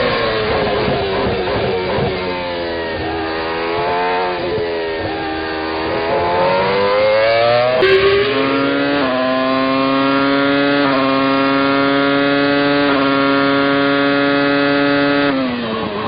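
McLaren-Mercedes 3.0-litre V10 Formula 1 engine heard from the onboard camera. Its pitch falls, then rises and falls through quick gear changes. About halfway it jumps abruptly to a steady high scream with small upward steps, then drops just before the end.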